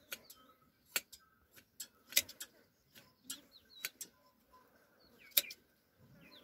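Hand shears snipping through a sheep's fleece: sharp metallic clicks at uneven intervals, with faint bird chirps behind.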